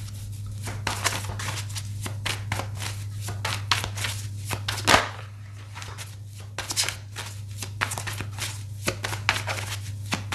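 A tarot deck being shuffled by hand: a run of quick papery riffles and card snaps, with a sharper slap about five seconds in.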